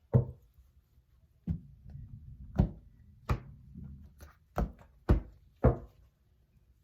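A tarot deck being handled on a table: about seven separate soft knocks and thuds, spaced irregularly.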